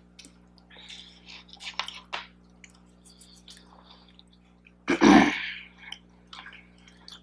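Soft chewing and crunching of cookies, then a single loud sneeze about five seconds in, from allergies that are acting up.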